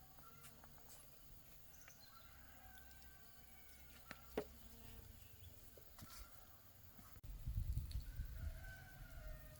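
Faint rooster crowing, heard twice as long drawn-out calls, with a few light clicks in between. About seven seconds in, a low rumble comes in suddenly.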